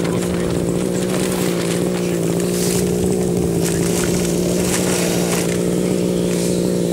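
29.5cc two-stroke petrol engine of a 1/5-scale RC monster truck running steadily at one speed, with no revving.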